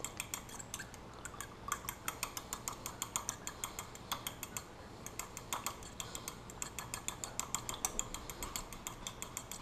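Metal fork whisking beaten eggs in a ceramic bowl with a quick back-and-forth scribbling stroke, the tines tapping the bowl in a steady run of light clicks, about five a second.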